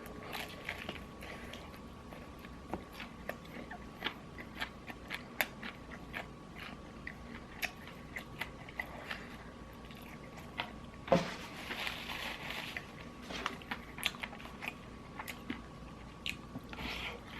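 Close-up chewing and biting of crispy fried chicken: many small sharp crunches, with a louder crunching bite about eleven seconds in.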